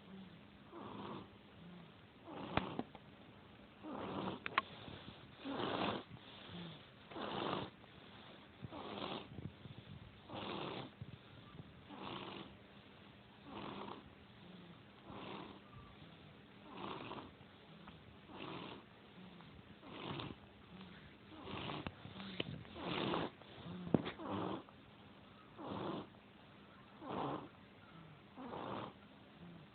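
Heavy snoring from a sleeper, one rasping breath about every one and a half seconds in a steady rhythm.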